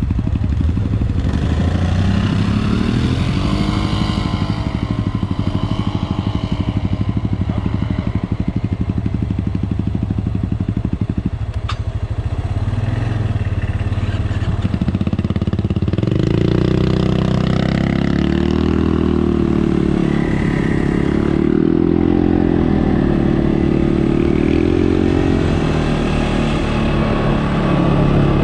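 CFMOTO off-road vehicle engine running under way, its note repeatedly rising and falling as the throttle is worked.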